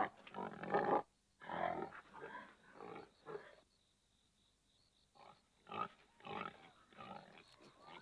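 Animated wild boar's calls in a series of short, rough bursts, with a pause of about a second and a half in the middle.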